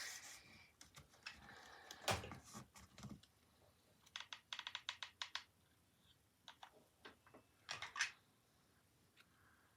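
Faint clicks, taps and rustles of hands handling paper and craft supplies on a tabletop, with a quick run of small clicks about four to five seconds in.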